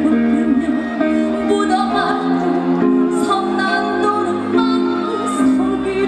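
A woman singing in Korean traditional gugak style through a stage sound system, over instrumental accompaniment. Her voice bends and wavers in pitch.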